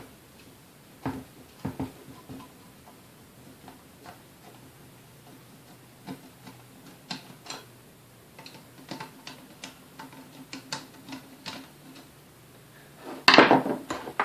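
Light ticks and clicks of a screwdriver backing screws out of the metal motor housing of a 1934 Sunbeam Mixmaster Model 1, coming irregularly. A louder clatter comes near the end.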